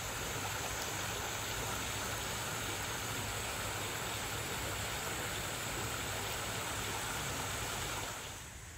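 Water pouring from an outlet in a rock wall and splashing into a penguin pool: a steady rushing sound that falls away suddenly about eight seconds in.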